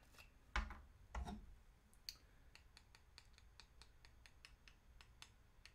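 Faint clicking and light knocks from handling a super glue bottle and a small 3D-printed plastic part: two soft knocks about half a second and a second in, then a run of small, quick clicks.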